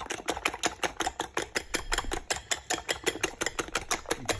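Eggs being beaten with a fork in a glass bowl, the fork clicking against the glass in a fast, even rhythm of about eight to nine strokes a second.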